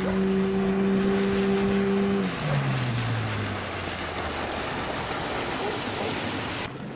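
Marlin 9.9 PRO outboard motor driving an inflatable PVC boat at speed: a steady high engine whine that drops in pitch and fades away about two seconds in, leaving the rush of water spray and wind.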